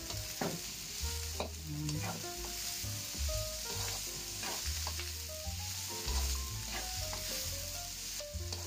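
Julienned hairy gourd and dried shrimp sizzling in hot oil in a non-stick wok while a spatula stirs and tosses them, scraping and tapping against the pan again and again.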